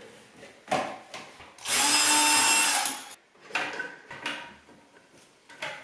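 A cordless drill-driver runs at a steady whir for about a second, turning a screw at a drain-pipe clip under a sink cabinet. Short knocks and clicks of the plastic drain pipe being handled come before and after it.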